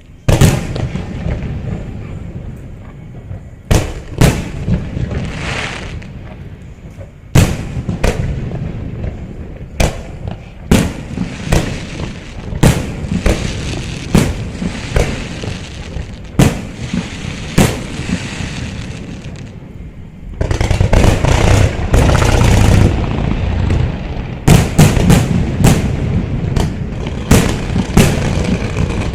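Aerial fireworks display: shells bursting with sharp booms every one to two seconds, each followed by a fading rumble. From about twenty seconds in, a dense barrage of rapid booms and crackling.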